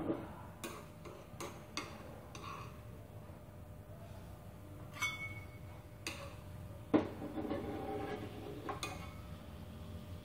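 Chopsticks and a metal spatula clicking, tapping and scraping against a nonstick frying pan as pieces of fried egg are turned. Scattered sharp knocks, the loudest about seven seconds in.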